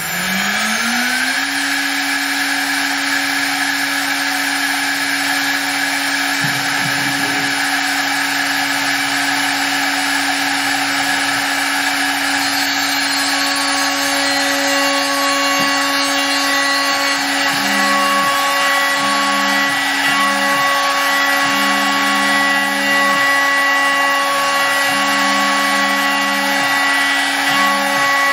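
CNC router spindle winding up to speed during the first second or so, then running with a steady whine. From about halfway the cutter is milling a shallow circular pocket in MDF, and a lower tone switches on and off repeatedly as the cut goes on.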